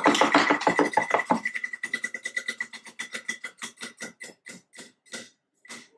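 Tabletop prize wheel clicking as it spins down, the clicks fast at first and coming farther apart as it slows, the last one near the end as the wheel stops.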